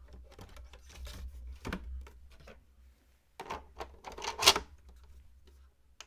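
Plastic hard-drive tray sliding and clicking into a NAS drive bay, followed by handling clicks and knocks on the NAS's plastic casing, with the loudest sharp clack about four and a half seconds in as the front cover is shut. A faint low hum lies underneath.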